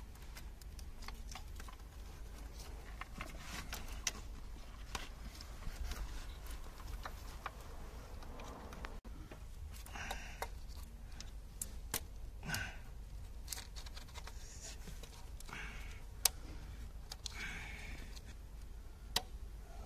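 Scattered clicks, taps and short rattles of hand tools, plastic connectors and engine parts being handled during reassembly of a car engine, over a steady low hum.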